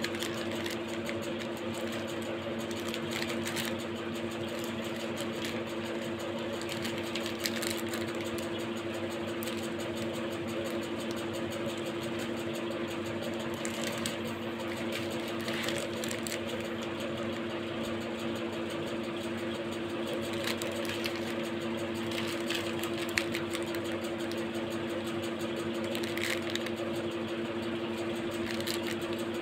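A steady machine hum, unchanging throughout, with now and then a brief crinkle of plastic biscuit wrappers being handled.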